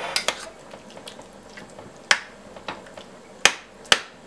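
Spoon stirring chicken liver in sour cream sauce in a stainless steel saucepan, knocking and clinking against the pan: a few sharp knocks, the loudest a little after two seconds and two more near the end.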